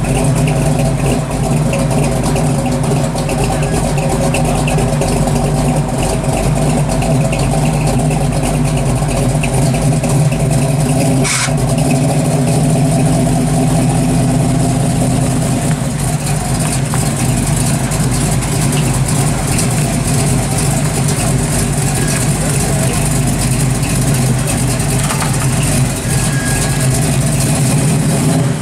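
Classic Chevrolet C10 pickup's engine running at a steady idle through its exhaust as the truck rolls slowly away, the note rising briefly about halfway through. A single sharp click comes shortly before that.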